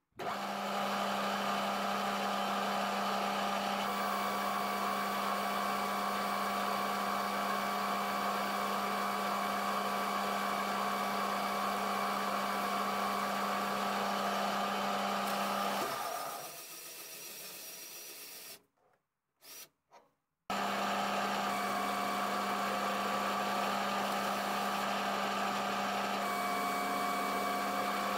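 Metal lathe running steadily while turning a hard alloy roller, a steady low hum with a higher whine from the motor and gears. It cuts off abruptly a little past halfway, falls silent for a couple of seconds, then starts again just as suddenly.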